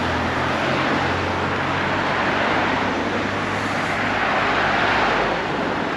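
City street traffic: a vehicle engine running close by with a steady low hum over a constant wash of road noise.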